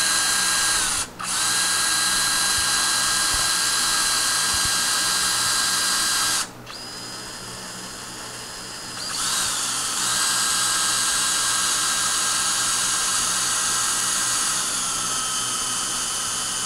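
DeWalt 14.4-volt cordless electric screwdriver running steadily as it unscrews the threaded rod of an adjustable ceiling fan brace bar, extending the bar. It stops briefly about a second in, runs slower and quieter for a few seconds midway, then speeds up again.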